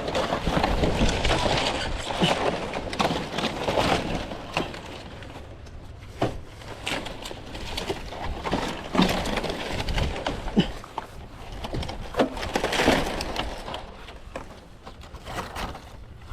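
Irregular sharp cracks and crunching amid rustling, coming in uneven clusters.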